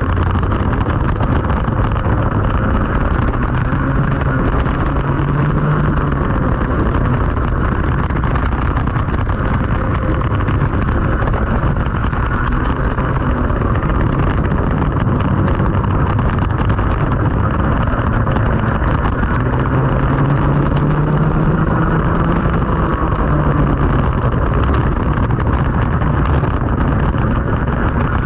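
Racing kart engine heard onboard at race pace, its pitch rising as it accelerates out of corners and dropping as it slows, with wind noise on the microphone and a dense hiss over it.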